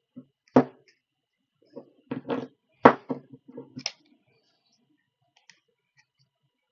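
A run of hard knocks and clicks, bunched in the first four seconds with the loudest near the three-second mark: small tools and drone parts being put down and handled on a workbench.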